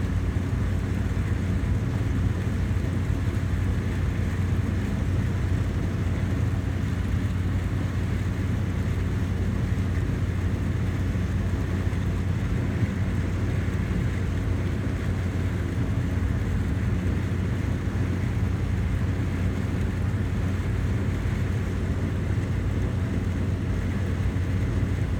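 Combine harvester running steadily while harvesting corn, heard from inside the cab: an even, unchanging machine drone with a steady low hum.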